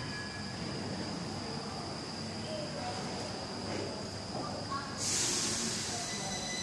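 Stockholm metro train at an underground platform: a steady rumble with faint voices, then about five seconds in a sudden loud hiss starts together with a high, steady multi-tone whine from the train.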